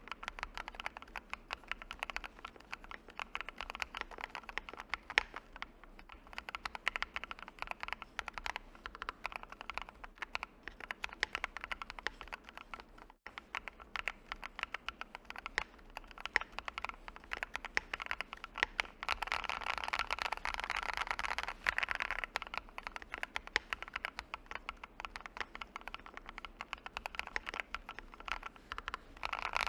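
Mechanical keyboard with Akko CS Wine Red linear switches on an FR4 plate being typed on: a continuous stream of quick, clacky keystrokes, denser and faster for a few seconds about two-thirds of the way through.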